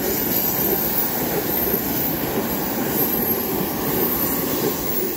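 Electric metro-type train passing close by: a steady rumble of wheels and running gear on the rails.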